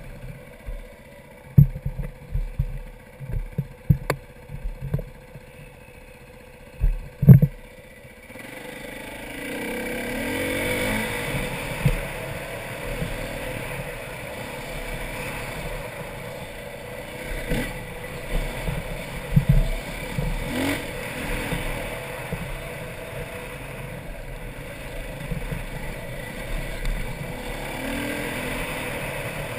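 Dirt bike engine running and revving as it is ridden over a rough trail, heard from a helmet camera with wind rushing on the microphone. The first several seconds are quieter and broken by sharp knocks, then about eight seconds in the engine and wind noise grow louder, the engine note rising and falling.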